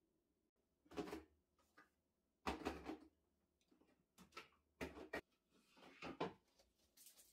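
Plastic storage bins and the things in them knocking and clattering as they are lifted, moved and set down on pantry shelves: a string of separate knocks, the loudest about two and a half seconds in.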